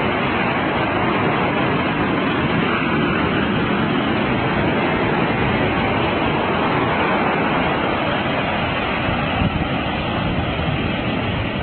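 Ocean waves breaking on a beach, a steady rush of surf.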